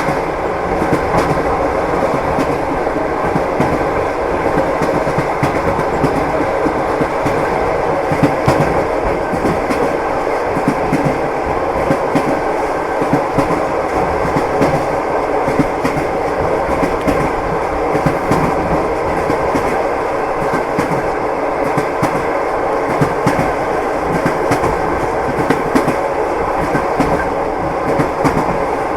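Train wheels clacking over the rail joints with a steady rolling rumble.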